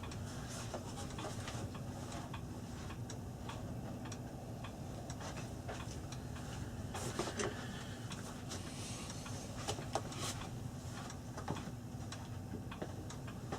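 Faint, scattered light clicks and taps of small parts being handled, over a steady low hum.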